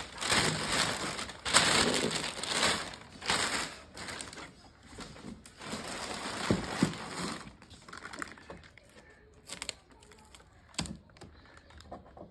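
Plastic packaging sheet crinkling and rustling as it is pulled and handled, loudest for the first few seconds. After that, quieter handling noise with a few sharp knocks.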